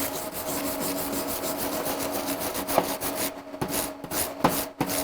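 Hand wire brush scrubbed in quick back-and-forth strokes over a fresh weld on a steel bushing, cleaning it. A couple of brief metallic knocks ring out partway through.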